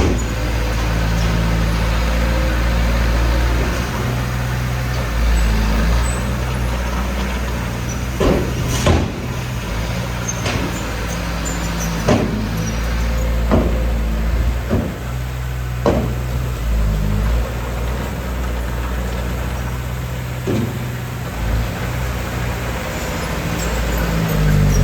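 Heavy diesel engine of earthmoving machinery running steadily with a deep rumble. Several sharp knocks sound through the middle of the stretch.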